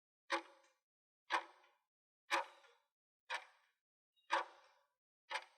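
Clock-tick sound effect, one sharp tick each second with a short ringing tail and dead silence between, six ticks in all: the countdown timer of a multiple-choice quiz question.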